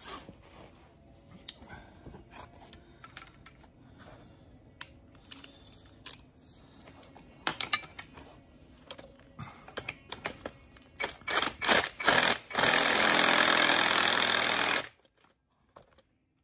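Socket ratchet clicking and metal tools clattering as a starter motor bolt is wound in on an engine block, with a run of sharper clicks about two-thirds of the way through. Near the end a loud steady noise runs for about two seconds and cuts off suddenly.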